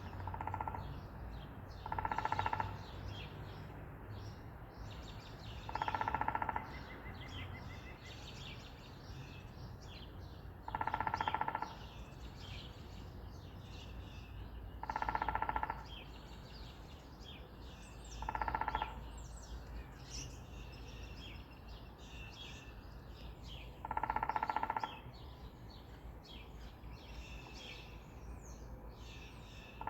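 Woodpecker drumming in six short bursts, each under a second, about every four to six seconds; each burst rings with a steady pitch as if struck on a resonant surface. Small birds chirp and twitter faintly between the bursts.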